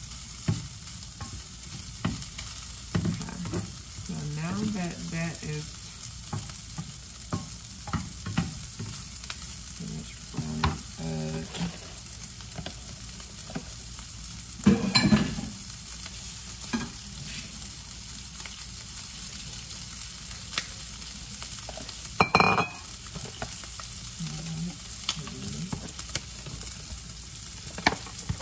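Sliced sausage sizzling in a hot nonstick skillet, frying in its own fat with no oil added, with a spatula stirring and scraping the pieces. A few louder knocks and clatters stand out, the loudest about fifteen seconds in and again a little past twenty-two seconds.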